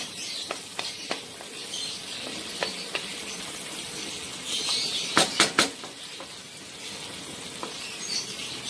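Onion and tomato sizzling in a non-stick wok as a wooden spoon stirs them, with scattered clicks and a quick run of three or four sharp knocks about five seconds in.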